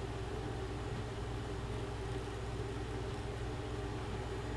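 Steady low background hum with a constant drone and faint hiss, no strokes, clicks or other distinct events.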